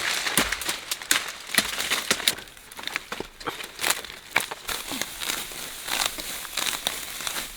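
Rustling and crackling of dry leaves and brush, with many sharp snaps close together.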